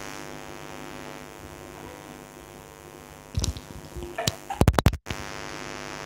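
Steady electrical mains hum on the microphone recording, with a few loud sharp knocks about three and a half seconds in and a cluster of them near five seconds.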